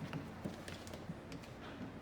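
A few faint, irregular clicks over low room noise, in a pause between bursts of the power driver.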